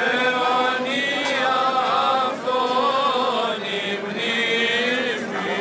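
Greek Orthodox Byzantine chant of the Epitaphios service: voices singing a slow, ornamented melody with long held notes.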